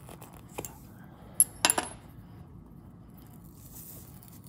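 Small metal clinks on a stone countertop: a sharp ringing clink about a second and a half in, then a quick rattle of clinks, as a tiny wheel screw and a metal hex driver are set down.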